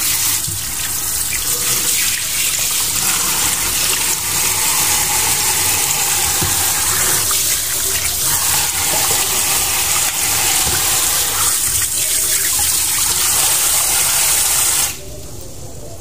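Kitchen tap running through a spray head onto fish roe in a steel bowl in a stainless steel sink, a steady splashing hiss as the roe is rinsed by hand. The water cuts off about a second before the end.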